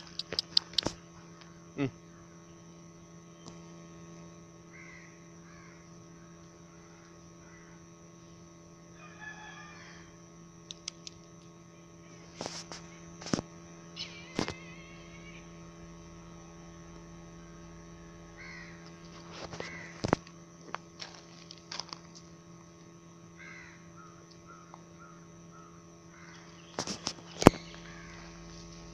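Chickens clucking and calling at intervals over a steady low hum, with several sharp clicks or knocks, the loudest near the end.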